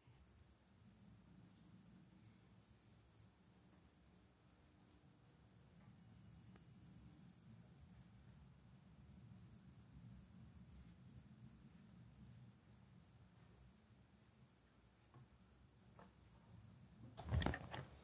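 Faint steady chorus of insects trilling in the background, with a short louder noise near the end.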